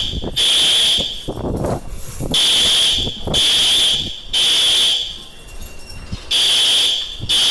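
Building fire alarm horns sounding loudly in the temporal-three evacuation pattern: three short blasts about a second apart, then a pause of about a second and a half, repeating. The alarm was set off by a manual pull station during a system test.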